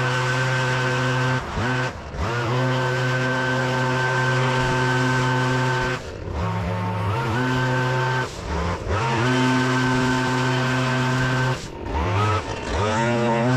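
Engine-powered leaf vacuum running at high speed. Its engine pitch dips and recovers several times.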